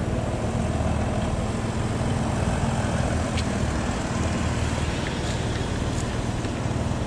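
Police Audi estate car's engine running as the car pulls slowly away, over a steady low rumble of street traffic.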